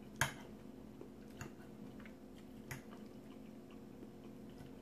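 A fork clicking against a ceramic plate a few times, the first click about a quarter second in the loudest, with quiet chewing between. A faint steady hum sits underneath.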